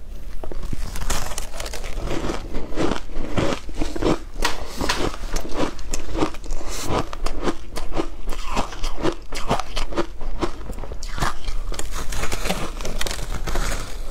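A block of frozen shaved ice dusted with matcha powder being bitten and chewed close to the microphone. Crisp ice crunches come two or three a second without a break.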